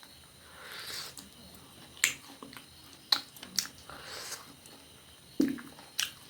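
Close-miked eating sounds: wet mouth clicks and lip smacks while chewing, about five sharp smacks at uneven intervals, with soft breaths between.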